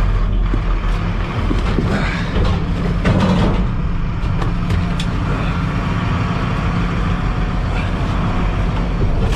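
Vehicle engine running steadily, heard from inside the cabin, with a few short knocks and rattles over it.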